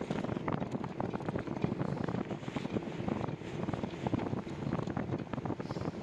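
Wind buffeting the microphone: a steady rumbling rush broken by many short crackles.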